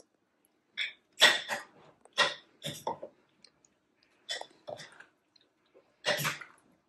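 Fork and spoon stirring raw chicken pieces through a thick marinade in a glass bowl: irregular wet squelches and scrapes in about six short bursts.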